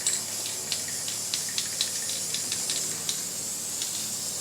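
Black spray paint hissing steadily out of the nozzle as it is sprayed over primer on a truck bed, with a run of quick, sharp ticks that thins out after about three seconds.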